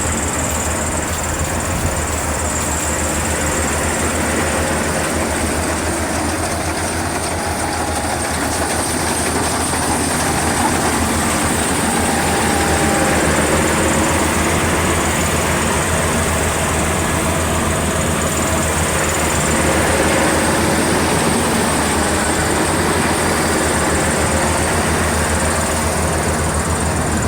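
Maxxi Bimo 102L combine harvester running steadily while harvesting rice, its engine hum mixed with the rattle of the threshing machinery and a faint high whine.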